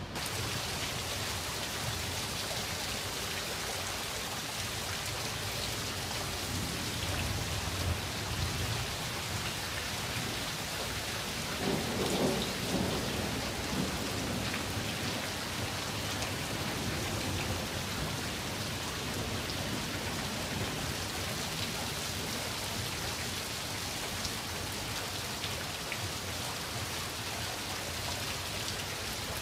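Steady heavy rain falling, with low rolls of thunder, the loudest about twelve seconds in.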